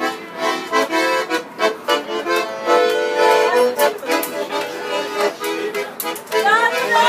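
Accordion played live: a lively tune of chords over a rhythmic bass.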